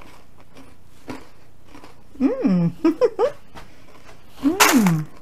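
A woman humming 'mmm' with her mouth full while tasting a bite of popcorn: a long falling 'mmm' about two seconds in, a few short hums after it, and another rising-then-falling 'mmm' near the end.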